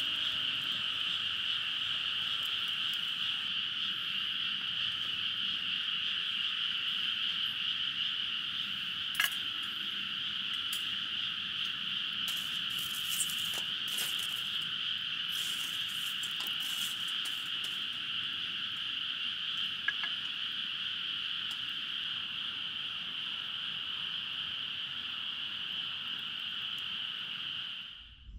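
A steady, unbroken night-time chorus of calling animals, with a few faint crackles from a wood fire burning in a fire stand. The chorus cuts off suddenly just before the end.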